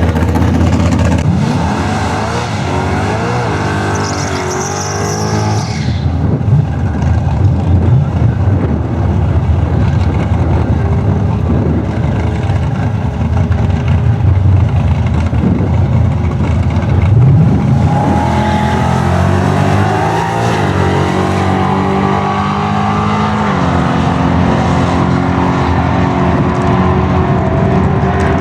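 Holden VP Commodore's engine under full throttle on a drag run, rising in pitch and dropping back several times as the automatic gearbox shifts up.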